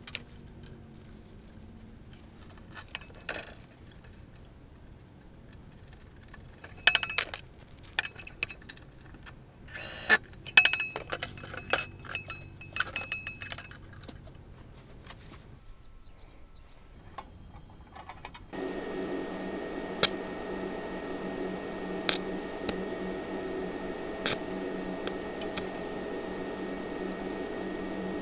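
Metal parts clinking and knocking as they are handled, some strikes ringing briefly. About two-thirds of the way through, a steady mechanical hum starts, with occasional clicks over it.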